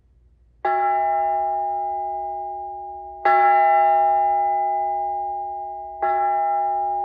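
A bell struck three times, about two and a half seconds apart. Each stroke rings at the same pitch and fades slowly, still sounding when the next one lands.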